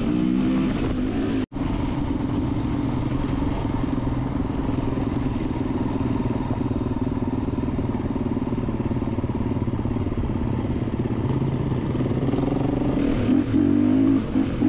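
Gas Gas 350 single-cylinder four-stroke dirt bike engine running steadily while riding, heard close from the bike itself. The sound drops out suddenly for a split second about a second and a half in, then the engine resumes.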